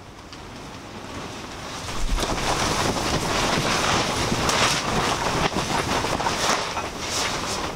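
Strong wind buffeting the fabric of an inflatable camping shelter, a steady rushing with repeated sharp flaps and snaps of the fabric in the gusts. It fades up over the first two seconds and then stays loud.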